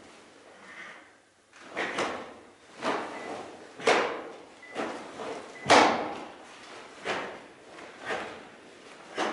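Karate kata movements: a series of short, sharp snaps and swishes of the karate gi and stepping on the wooden floor with each strike and block, about one a second, the loudest about six seconds in.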